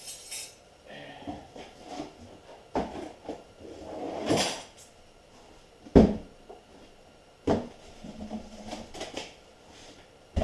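A cardboard shipping box and pre-bent hard brake lines being handled: rustling and scraping with scattered knocks. The loudest is a sharp knock about six seconds in.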